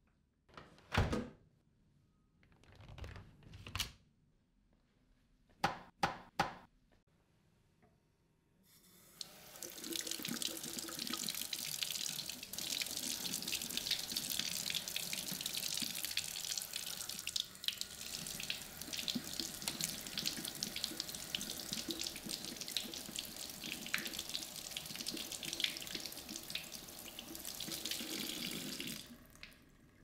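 A few sharp clicks and knocks, then from about nine seconds in a kitchen tap running water over a vacuum filter unit held under it and into the sink, rinsing the filter. The water stops shortly before the end.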